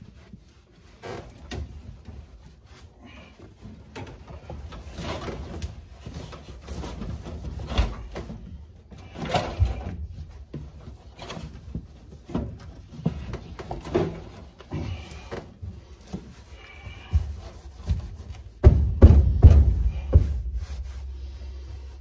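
Irregular knocks, bumps and rubbing of carpet being handled and pressed into place inside a car's interior, with a louder stretch of low thumping and rubbing near the end.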